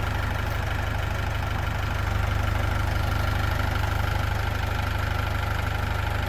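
Tractor engine idling steadily with a low, even pulse, a little louder from about two seconds in.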